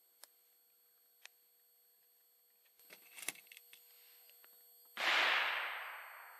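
Original Remington Old Model Army percussion revolver: a few light clicks, then a quick run of clicks as the hammer is cocked and the cylinder turns. About five seconds in comes a single loud black-powder shot whose echo fades over a second or so.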